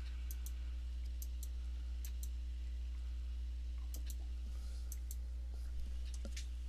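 Irregular light clicks of a computer's keys or mouse button, often in pairs, as a sky chart on screen is stepped forward a day at a time. A steady low electrical hum runs underneath.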